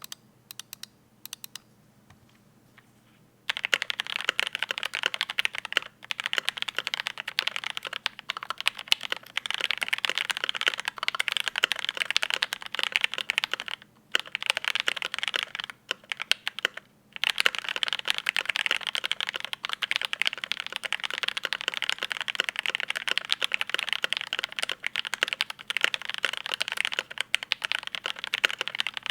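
Mechanical keyboard with Durock Mauve linear switches, their stems lubed with 205g0, in a polycarbonate Think6.5 case: a few single keystrokes, then steady fast typing from about three and a half seconds in, broken by brief pauses.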